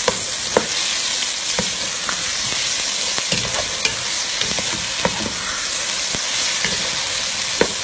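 Chopped okra and tomato paste sizzling in hot oil in a pot as they are stirred, the stirring utensil clicking against the pot every second or so.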